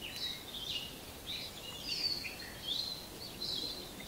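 Birds singing: a continuous run of short, high chirps and whistled notes, some sliding in pitch, overlapping one another.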